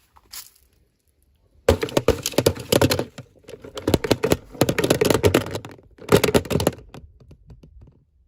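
Plastic packaging crinkling and crackling as it is handled and opened, in dense runs of rapid clicks with short breaks, starting about two seconds in and fading to light rustles near the end.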